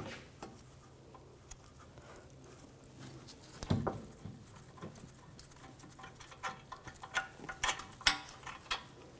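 A wrench working on an 8 mm hex-head brake caliper bracket bolt: scattered metallic clicks and small knocks, with a heavier knock about three and a half seconds in and a quicker run of clicks near the end.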